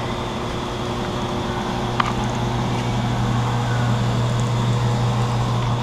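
Steady low mechanical hum, with a single sharp click about two seconds in.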